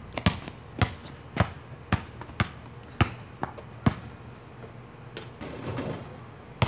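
A basketball dribbled on asphalt: sharp bounces about twice a second for the first four seconds, then a pause while the shot goes up, and another loud thump near the end.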